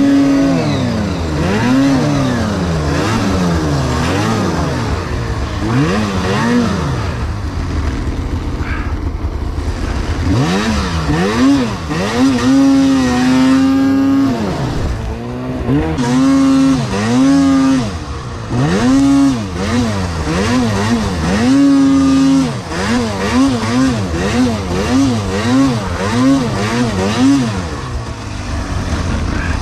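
Snowmobile engine revving up and down again and again under heavy throttle, with a run of quick short throttle blips, about two a second, near the end.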